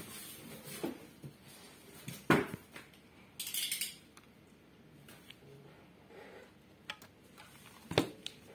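A Seagate 3.5-inch hard drive and a plastic drive bracket being handled on an anti-static bag: a few sharp knocks and clicks, the loudest about two seconds in and near the end. A brief crinkle of the bag comes about three and a half seconds in.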